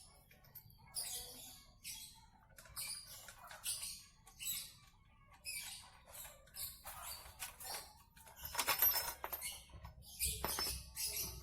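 Irregular light scraping and rustling in short strokes, with a brief cluster of metallic clinks about nine seconds in: hand work on metal engine parts.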